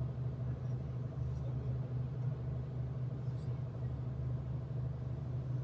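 Steady low rumble of a V/Line diesel passenger train heard from inside the carriage as it runs along the track.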